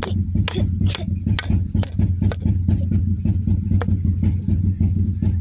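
A steady low, engine-like hum with irregular sharp clicks and taps over it, a few each second.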